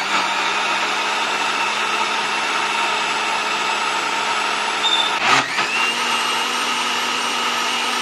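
Sujata mixer grinder's motor running at full speed, blending a smoothie in its jar: a steady whir with one short knock and a slight shift in pitch about five seconds in.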